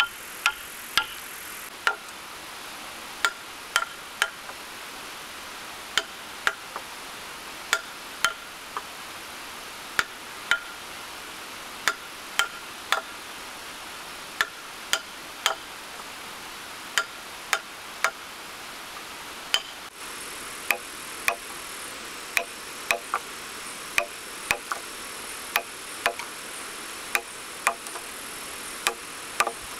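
Repeated strikes on a steel chisel cutting a mortise into a hewn timber beam: sharp, slightly ringing knocks at an uneven pace of about one a second.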